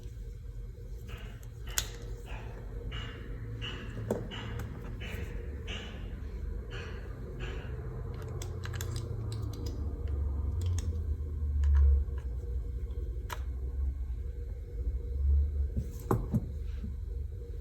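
Scattered light clicks and taps from handling an iPad and its plug-in USB connector, over a low rumble of handling noise. There are a couple of louder dull bumps in the second half.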